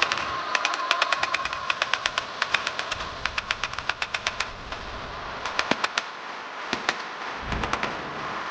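Rapid bursts of hammer blows on steel, about ten strikes a second, stopping and restarting several times. A steady tone runs underneath.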